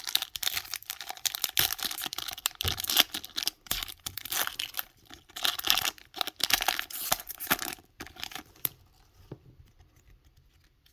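Foil booster-pack wrapper being torn open and crinkled: a dense run of rips and crackles for about eight and a half seconds, then only faint light handling sounds.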